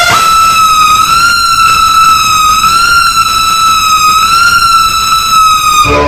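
Truck-mounted DJ sound system playing a loud electronic siren effect: one high pitch held with a slight waver, cut off just before the end.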